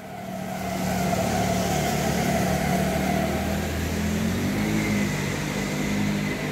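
A motor vehicle engine running steadily, swelling over the first second and then holding even.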